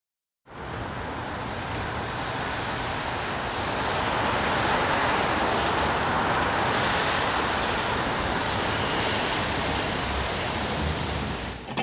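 A steady rushing noise, even and without distinct events, that begins suddenly, swells a little midway and cuts off near the end.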